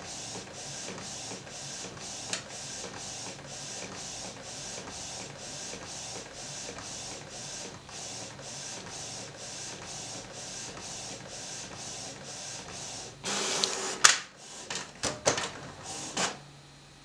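Inkjet printer printing a photo page, its print head shuttling back and forth in an even rhythm of about two passes a second. About thirteen seconds in comes a louder whirr and a few sharp clacks as the finished sheet is fed out, and then the printer stops.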